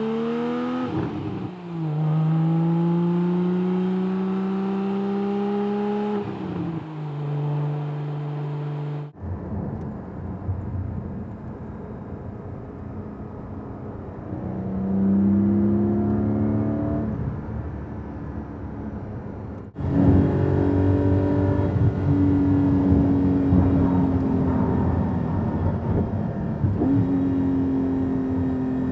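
Porsche 718 Cayman GT4's 4.0-litre flat-six engine and exhaust pulling through the gears, its pitch rising and dropping at each upshift. About nine seconds in, the sound switches to inside the cabin: engine running under road noise, pitch rising and then holding steady.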